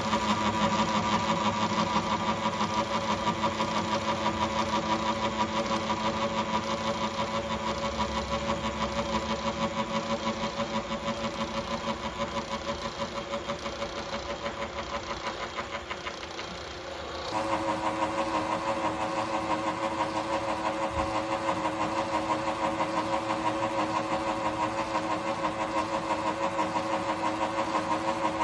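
Atlas milling machine running with a rapid, even pulsing, likely while cutting the slots in a steel tool post. The tone of the machine changes abruptly a little past halfway through.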